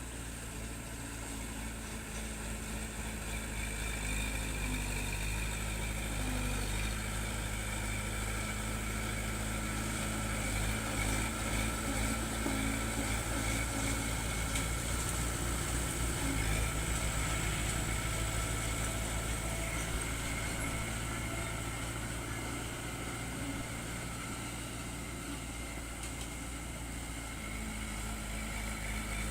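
Diesel engine of earthmoving machinery running steadily with a steady whine above it, growing a little louder in the middle and easing off later.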